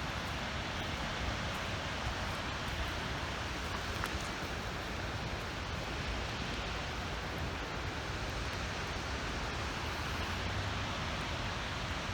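Skógafoss waterfall's steady rushing roar of falling water, an even noise with no change in level.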